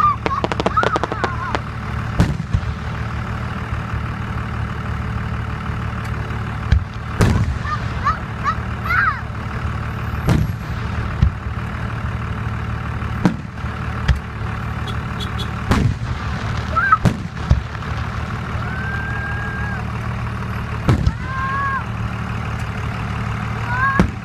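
Fireworks bursting: sharp bangs every second to few seconds, with a quick run of crackles about a second in. A steady low hum runs underneath, and short whistle-like tones sound now and then.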